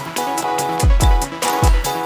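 Background electronic music with deep bass kicks that drop in pitch, about two a second, under a repeating synth pattern.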